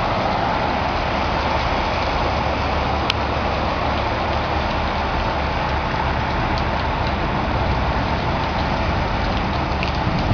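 Steady rush of rain and flash-flood water running down a street, with a low rumble underneath and a single sharp click about three seconds in.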